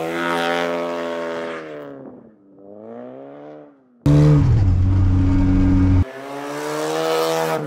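Lada Zhiguli (VAZ) car engines revving up and falling back while drifting on snow, heard across several abruptly cut shots: two rise-and-fall rev swells, then a sudden loud stretch held at steady revs, then revs climbing again near the end.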